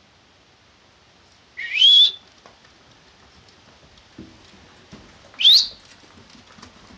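Two loud rising whistles, about three and a half seconds apart: a stockdog handler's whistled commands to a young border collie working cattle.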